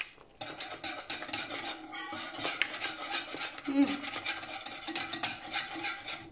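Stainless-steel wire whisk beating a thick cheese sauce in a non-stick frying pan: fast, continuous scraping and clicking strokes of the wires against the pan, starting about half a second in.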